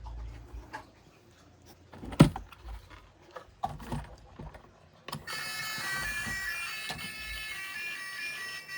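Light plastic clicks and knocks from toys being handled, with one sharp click about two seconds in. About five seconds in, a steady, reedy electronic tune of several held notes starts and continues.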